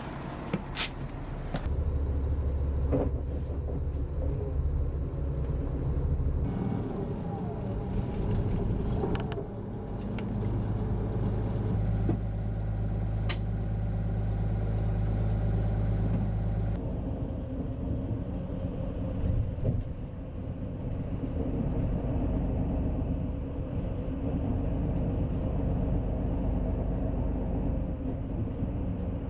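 Steady low rumble of a moving road vehicle. Its character changes abruptly every few seconds, with a few sharp clicks near the start.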